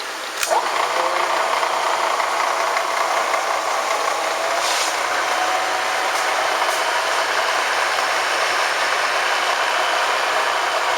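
Lagun FTV1 vertical milling machine switched on with a click about half a second in, its 3 hp spindle motor and belt drive spinning up with a short rising whine and then running steadily. The head has freshly replaced top bearings and a new belt.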